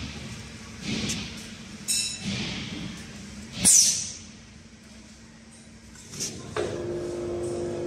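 Metallic clinks and knocks as a paper core and the chuck of a PC2000SA automatic core cutter are handled, the loudest a ringing clank just before halfway. About a second and a half before the end, the servo-driven machine starts up with a steady hum.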